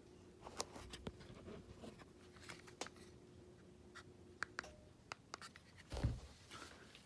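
Fanimation Aire Duo ceiling fan with a faint steady motor hum under scattered light clicks and ticks. The hum stops about two-thirds of the way through, and a dull thump comes near the end.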